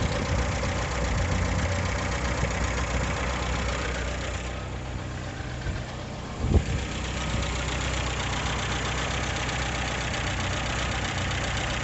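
Polski Fiat 125p's inline four-cylinder engine idling steadily under an open bonnet, settling just after a rev, with one brief louder blip about six and a half seconds in.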